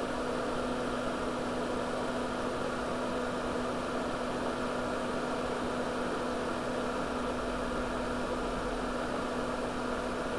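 Solder fume extractor fan running steadily: an even whir with a constant low hum.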